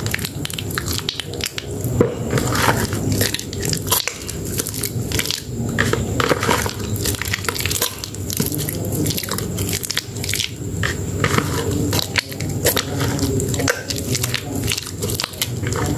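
Soaked bar soap being squeezed and rubbed between lathered hands: wet foam squishing with irregular crackles and crunches, over a steady low hum.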